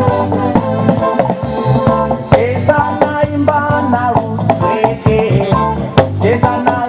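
Reggae song playing, with a voice singing over guitar, bass and drums.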